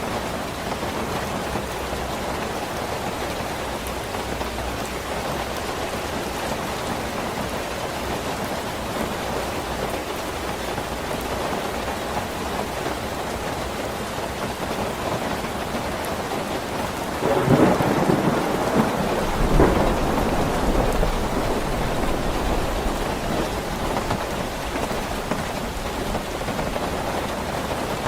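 Steady rain falling, with a thunderclap cracking about two-thirds of the way through, a second sharp crack shortly after, and a low rumble for a few seconds.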